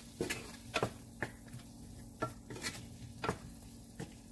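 Wooden spatula stirring chicken and tomato in a nonstick sauté pan, knocking and scraping against the pan at irregular intervals, over the sizzle of the food frying.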